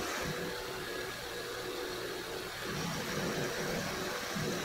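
Vertical milling machine running, its end mill cutting metal as the workpiece is fed past it. A steady machine tone with cutting noise; the lower tone weakens briefly about halfway through, then returns.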